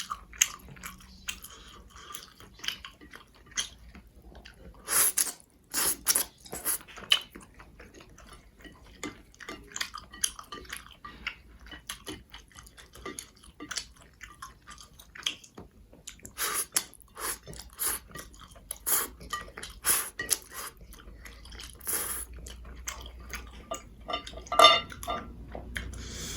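Close-miked chewing and wet mouth clicks of a person eating spicy Korean noodles. The clicks are irregular and come in louder clusters a few seconds in and again later, with a brief pitched mouth sound near the end.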